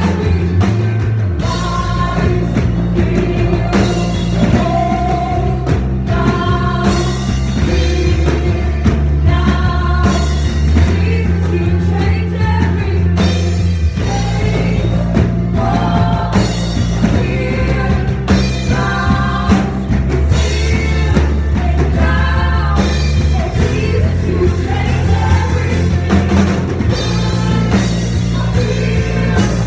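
Live worship song: voices singing over acoustic guitar, bass and drums. The low bass notes change every few seconds under the singing.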